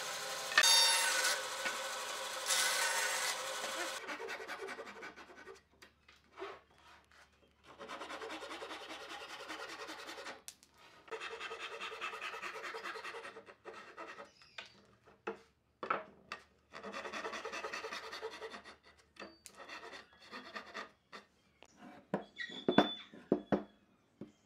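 A band saw running and cutting wood, cut off suddenly about four seconds in. Then a Japanese-style handsaw cutting wood by hand in three spells of steady sawing, with scattered wooden knocks between them and a few sharp knocks of wood on a bench near the end.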